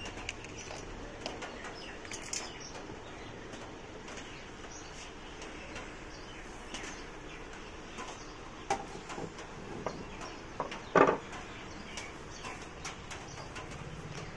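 Scattered light clicks and rattles of a Studiomaster power amplifier's sheet-metal top cover being lifted off and handled, over steady low background noise, with one louder knock about eleven seconds in.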